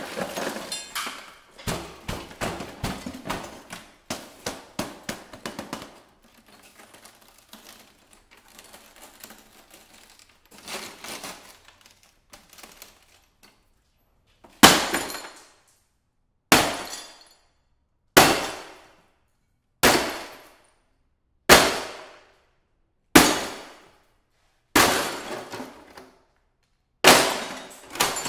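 Sledgehammer smashing an old CRT television: about eight heavy strikes in the second half, roughly one and a half seconds apart, each followed by rattling glass and plastic. Before the strikes, the shattered set's broken glass and plastic clatter and clink as it is handled.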